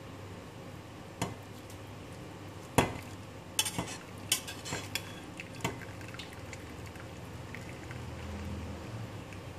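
Metal spoon clinking and scraping against a stainless steel saucepan as cooked minced pork is held back and its cooking liquid is drained off into a bowl, with a thin trickle of liquid. The clinks are sharp and scattered, most of them in the first six seconds.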